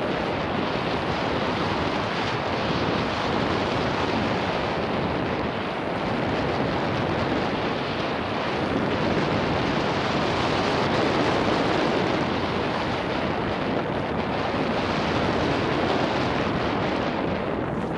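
Steady rush of wind buffeting a 360 action camera's microphone, mixed with tyre and trail noise from a mountain bike riding fast down a race stage.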